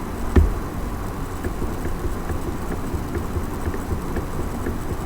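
Small DC motor of a door-lock model running with a steady hum, kept running to show that the magnetic lock is holding. A sharp click comes about half a second in, and faint light taps follow.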